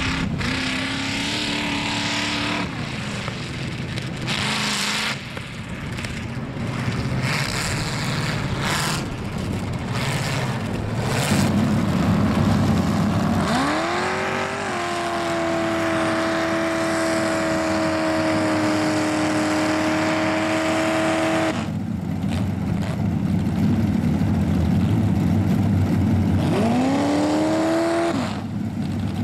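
Mud truck engines revving hard while the trucks drive through a mud pit. One truck revs up about halfway through, holds a steady high rev for about seven seconds and then cuts off suddenly; another rev-up follows near the end, as the truck ploughs through the water and throws mud from its tyres.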